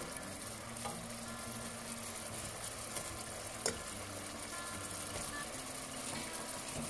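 Thick, sugary orange-chicken sauce bubbling and sizzling in a non-stick pan as fried battered chicken pieces go in, with one sharp click about three and a half seconds in.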